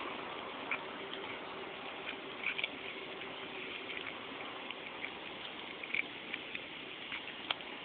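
Domestic cat chewing a field mouse: scattered small, irregular clicks and crunches over a steady background hiss.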